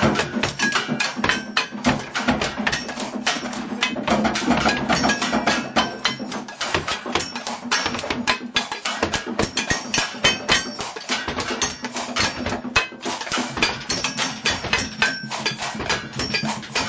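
Fast, dense improvised drumming on kitchen objects and utensils, many strikes a second, some hits ringing briefly like struck metal.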